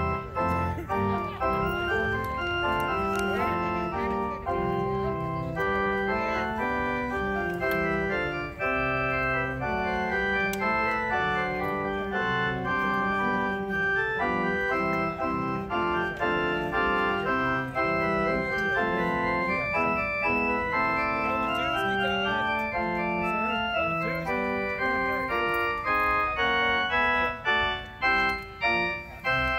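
Organ postlude: a lively run of held chords with a moving melody over them, a few shorter, detached notes near the end.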